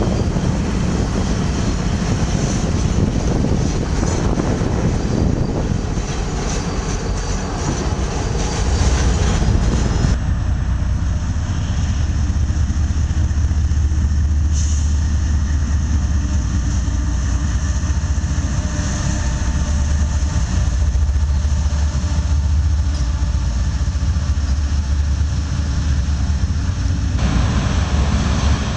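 Diesel freight locomotives. First the engines and wheels of passing Norfolk Southern locomotives. Then, after a cut about ten seconds in, a steady low rumble of CSX diesel locomotives' engines running. Near the end the sound changes again.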